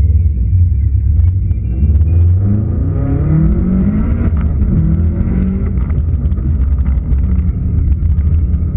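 Subaru Impreza WRX STI's turbocharged flat-four engine, heard from inside the cabin, accelerating hard, its pitch rising and falling several times as it revs through the course. A steady low rumble runs under it.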